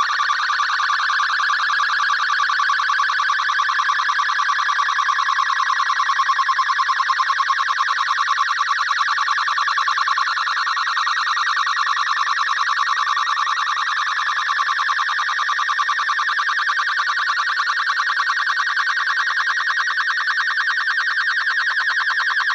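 MFSK64 digital data signal carrying a picture, received over an FM radio: a loud, continuous, rapidly warbling electronic tone that never breaks.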